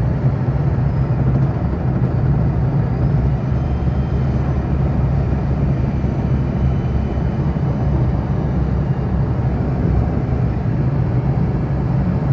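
Daihatsu Mira's 650 cc naturally aspirated engine and CVT transmission running steadily at road speed: a constant low drone over road noise, with a faint high whine a few seconds in. This is the car's normal running sound, with no fault.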